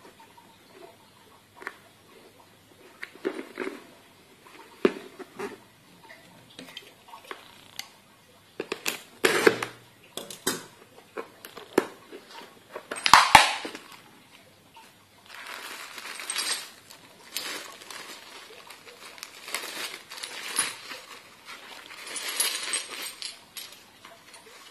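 Hands handling a blue plastic case of a watch case-closer press set: scattered clicks and knocks of the plastic case, with a loud snap about halfway through. Later, rustling of plastic bags and clinking of the metal press dies inside the case.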